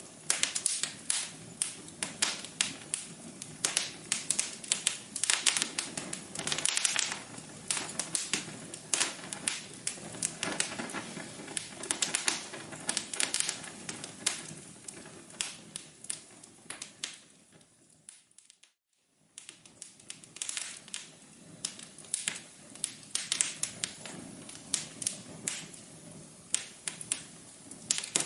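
Wood fire crackling, with dense, irregular snaps and pops. About two-thirds of the way through it fades almost to silence for about a second, then the crackling resumes.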